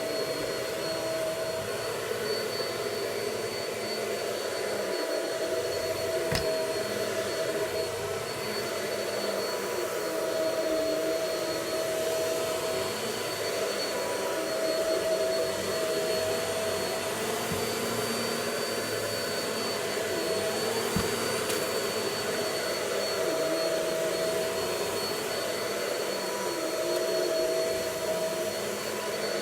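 Vacuum cleaner running steadily, a constant rushing noise with a steady high whine over it.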